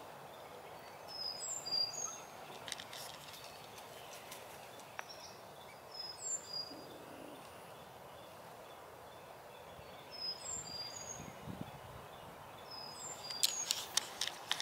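Bird chirping outdoors: a short phrase of high, quick chirps repeated four times, every four seconds or so, over steady background noise, with a few sharp clicks near the end.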